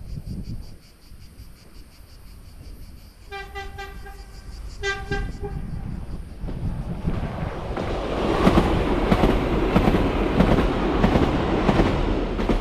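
Hellenic Train electric multiple unit sounding its horn twice, a long blast then a short one, as it approaches. It then passes close by: wheels rumbling and clattering on the rails, growing louder from about seven seconds in.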